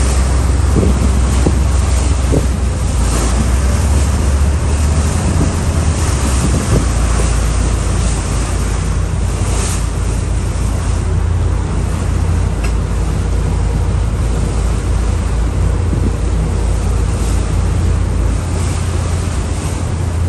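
Steady wind buffeting the microphone over the low rumble of boats under way, with water rushing along the hulls.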